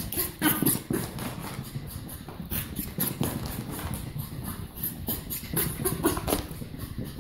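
Petit Brabançon, a small dog, barking and growling in repeated short agitated bursts, its reaction to fake fart noises.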